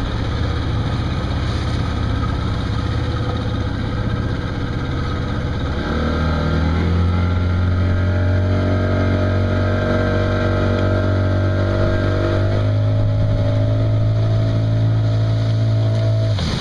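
Yamaha outboard motor running under way while towing an inflatable tube, with sea and wind hiss. The revs rise about six seconds in, hold steady, then drop away near the end.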